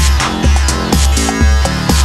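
Background electronic dance music with a steady, driving bass beat about twice a second.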